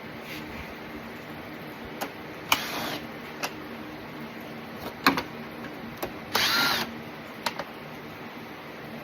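Cordless power driver spinning T25 Torx screws out of a car's fan cowling in two short whirring runs, about four seconds apart. Sharp clicks and knocks of tool and plastic handling come between the runs.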